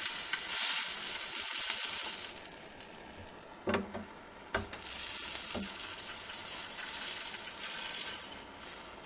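Flux and solder sizzling under a hot soldering iron as it sweats solder into an overlapped copper seam, in two stretches with a quiet gap between. In the gap come a few light knocks of the iron and metal.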